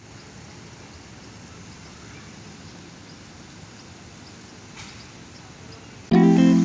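Steady outdoor background noise with faint high chirps repeating every half second or so; near the end, guitar music starts suddenly and much louder.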